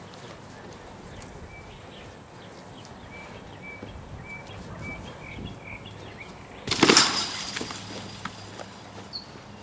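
One loud crashing impact about seven seconds in, dying away over about a second, as a wrestler is taken down in a backyard wrestling bout; faint bird chirps come before it.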